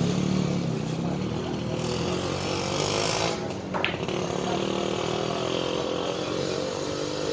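A small petrol engine running steadily, its pitch drifting and climbing somewhat in the second half, with a single sharp click a little under four seconds in.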